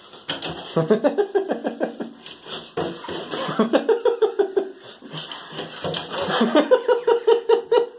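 People laughing in rapid, repeated bursts, with light knocks and scrabbling from a ferret jumping in a bathtub.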